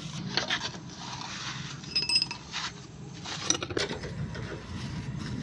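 Metal tools and parts clinking and scraping on a workshop floor during motorcycle chain-and-sprocket work, with a short ringing clink about two seconds in.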